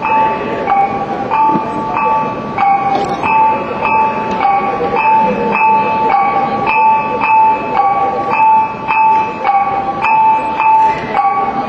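Music accompanying a Janggay dance: a steady repeating figure of held notes alternating between two close pitches, about three notes every two seconds, in the manner of kulintangan gong music.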